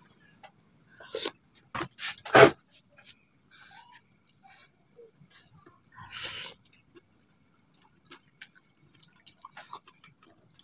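Person eating chicken noodles: a metal spoon and plastic fork clink and knock against a plastic bowl while mixing, the loudest knock about two and a half seconds in, then a slurp of noodles about six seconds in, with small mouth and utensil clicks after.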